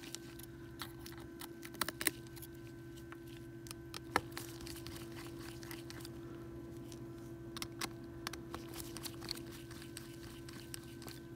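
Small irregular clicks and ticks of a precision screwdriver working the tiny screws out of an iPhone 7's loudspeaker assembly, the sharpest about two and four seconds in, over a steady low hum.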